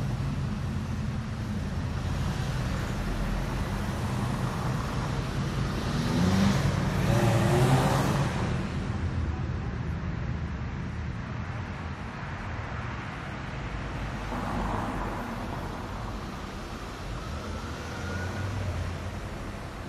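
Daytime city street traffic: a steady rumble of cars and other vehicles. About six to eight seconds in, one vehicle passes close and loud as its engine pitch rises under acceleration, and another passes more quietly later on.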